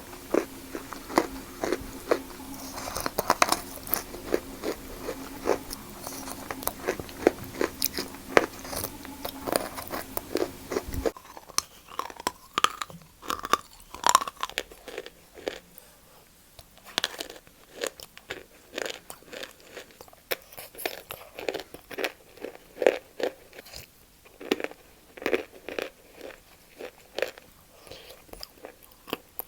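Close-up crunching bites and chewing of wet Kiti chalk, a dense series of sharp, irregular crunches. A low background hum under the first third cuts off suddenly about eleven seconds in.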